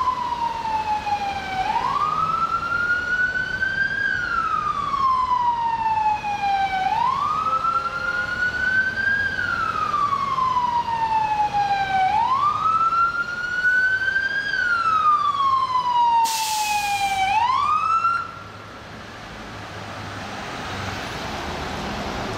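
FDNY emergency vehicle's siren wailing in slow cycles, each a quick rise in pitch followed by a long falling sweep, repeating about every five seconds. A short hiss sounds near the end of the siren, which stops about 18 seconds in, leaving city traffic noise.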